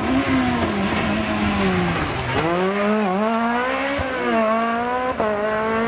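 BMW rally car's engine at full competition effort: the revs fall for about two seconds as it slows into a bend, then climb hard through several quick upshifts as it accelerates away.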